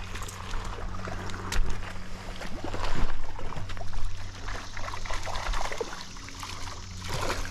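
Creek water splashing and trickling in irregular bursts, loudest about three seconds in.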